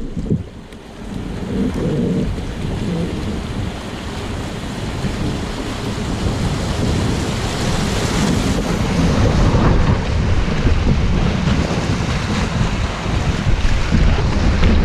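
Rushing whitewater of a small river rapid around a kayak, building up after the first second and staying loud as the boat runs down the chute, with a low rumble of wind on the microphone.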